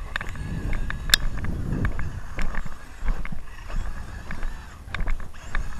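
Footsteps crunching in packed snow, with the faint whine of a Traxxas Summit RC truck's electric motor during roughly the first second and a half as it drives up and stops.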